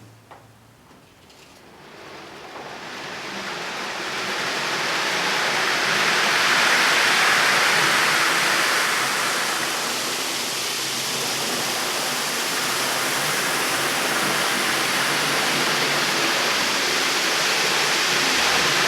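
Steady rushing noise, even across the range with no distinct tone, that builds up over the first few seconds and then holds steady with a slight dip about ten seconds in.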